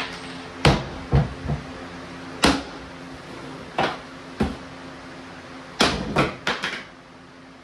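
Hammer blows on a wooden cabinet drawer box, about ten sharp knocks at an uneven pace, knocking the drawer apart. A quick run of four blows comes near the end, over a faint steady hum.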